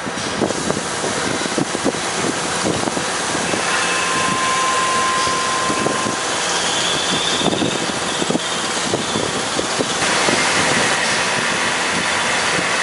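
Machinery running steadily with a dense clatter of small clicks and rattles, and a steady whine heard for about two seconds near the middle.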